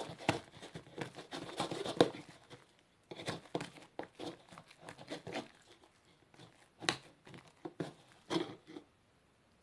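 Foamy glue-and-shaving-foam slime being stirred and tapped, giving irregular sticky clicks and crackles with short pauses.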